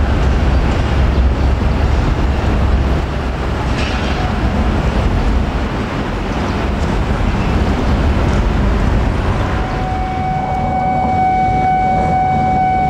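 KRL Commuter Line electric train running on the line, a steady rumbling noise that is heaviest in the first few seconds. About ten seconds in, a steady high tone with overtones comes in and holds.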